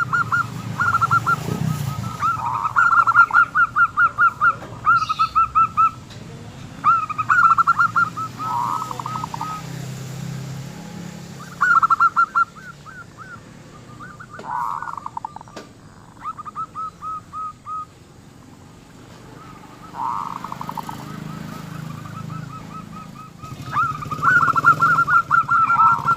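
Zebra doves (local perkutut) cooing: repeated phrases of quick, rattling staccato notes, one after another with short pauses between them.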